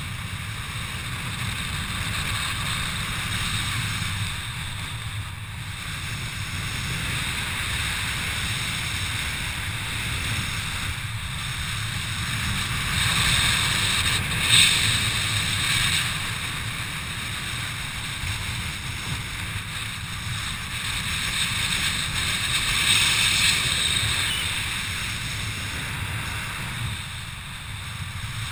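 Wind rushing over the microphone of a skydiver's camera during a descent under an open parachute, swelling and easing as the canopy turns. A short click about halfway through.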